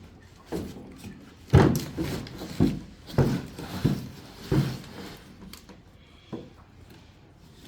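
Thumps, knocks and scraping of a heavy lithium battery and its packing box and foam being handled as it is lifted out, with a burst of several knocks between about one and a half and five seconds in and a couple of lighter ones after.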